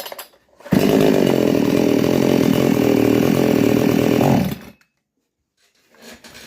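Two-stroke chainsaw engine running loud and steady at high revs for about four seconds, then dying away abruptly: the saw stalling under throttle, the fault that calls for the carburettor's low-speed (L) mixture and idle to be adjusted.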